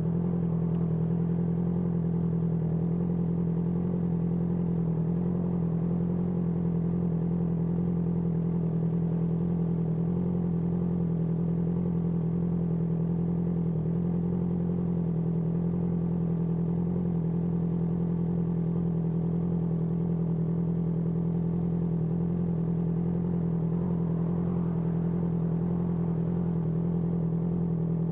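Honda CBR650R inline-four motorcycle with an IXIL IXRACE aftermarket exhaust, running steadily at an unchanging engine speed.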